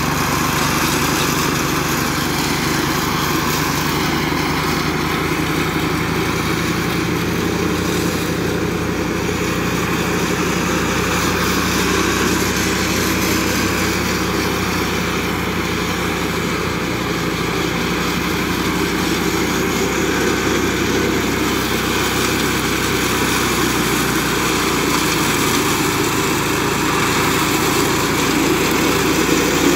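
Flail mower running steadily, its engine holding an even pitch, with a little rise in level near the end.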